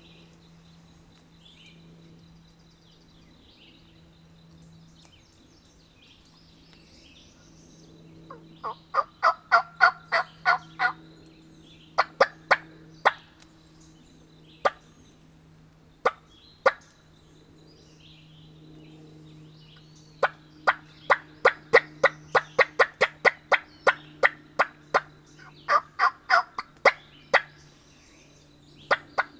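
Hen turkey yelping and cutting on a hunter's turkey call: loud, aggressive runs of short, sharp notes about four or five a second, in two main bursts with scattered single notes between them. Faint songbirds sing behind it.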